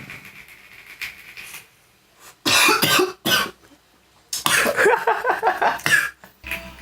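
A man coughing on vape vapour: two harsh coughs about two and a half seconds in, then a rapid run of coughs from about four and a half to six seconds.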